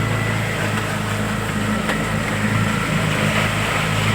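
Motorboat engine running steadily with a low, even hum.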